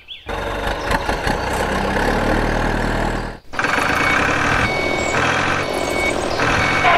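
Truck engine sound effect running, added over the toy vehicles. It cuts off about three and a half seconds in, then starts again with a high beep sounding several times, like a reversing alarm.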